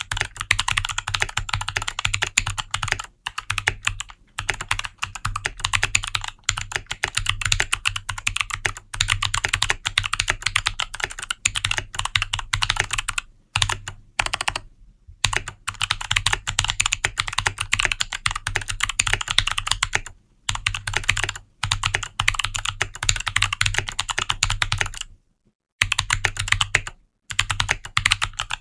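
Fast touch-typing on a Keychron K8 Max mechanical keyboard with Kailh Box Autumn clicky switches: a dense stream of sharp key clicks, broken by a few short pauses.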